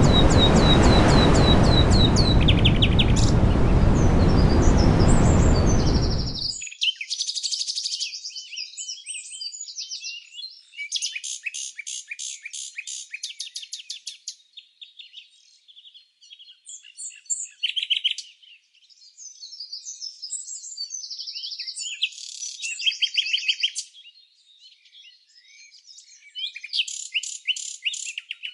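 Songbirds chirping and singing, over a loud steady rushing noise for the first six seconds or so. The noise then cuts off abruptly, leaving only birdsong: fast trills, rapid strings of high notes and short warbled phrases, with brief pauses between them.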